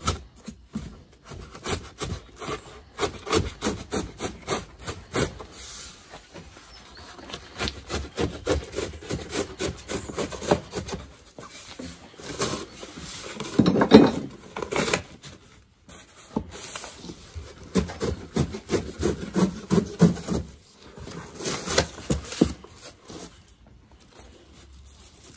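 Cardboard shipping box being opened and pulled apart by hand: an irregular run of rubbing and scraping of cardboard with sharp knocks, loudest about fourteen seconds in.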